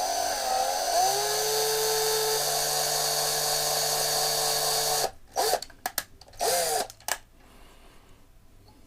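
Small power drill drilling out a rivet in a diecast metal model truck. It runs steadily for about five seconds, its pitch shifting and then settling about a second in, and ends with a few short bursts.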